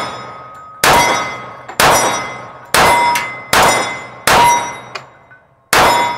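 Springfield Armory Champion Operator .45 ACP pistol firing Fiocchi hollow-point rounds: six shots about a second apart, with a longer pause before the last, each followed by a short ringing tail. The pistol feeds and fires the hollow points without a malfunction.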